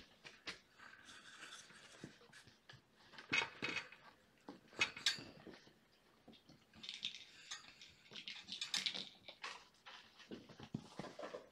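Scattered clicks and light knocks with a few short bursts of rustling, as things are handled and set down.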